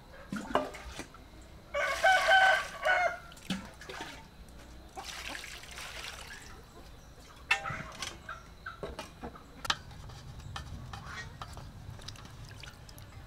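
A rooster crows once about two seconds in, the loudest sound here, and a shorter call follows later. Around it, water is poured and sloshed in an aluminium basin with sharp clinks of metal bowls as hands rinse the duck gizzards.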